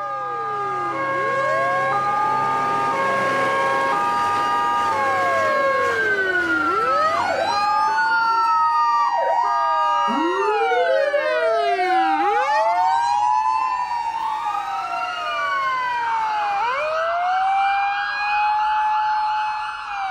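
Several emergency-vehicle sirens sounding at once and overlapping. A stepped two-tone hi-lo siren leads at first, then many rising and falling wails cross each other, and a fast warbling yelp comes in near the end.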